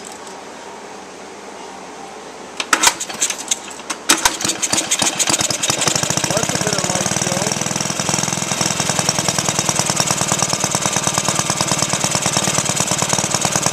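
Cast-iron Briggs & Stratton single-cylinder four-stroke engine with a glass see-through head. After a few knocks, it catches about four seconds in and runs steadily at a fast, even firing rate.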